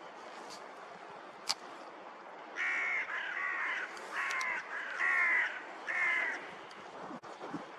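Hooded crow cawing, a series of about five caws starting about two and a half seconds in, over steady wind noise.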